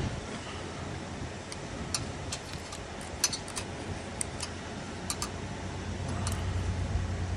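Small screwdriver working at a plastic clamp in a car's front end: irregular light clicks and ticks, the sharpest about three seconds in, over a low steady hum.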